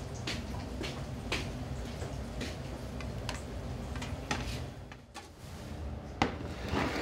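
Kitchen clatter: scattered light clicks and knocks of utensils and dishes over a steady low hum.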